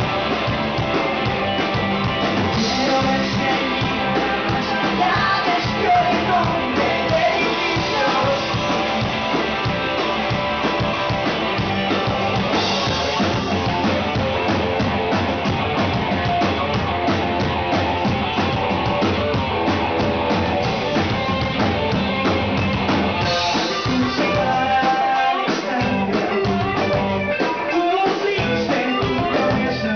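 Rock band playing live with electric guitars and a drum kit; the low end drops away briefly near the end.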